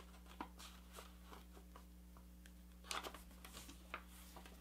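Faint rustling and crinkling of a sheet of paper being handled and creased, in scattered soft ticks with a small flurry about three seconds in, over a low steady hum.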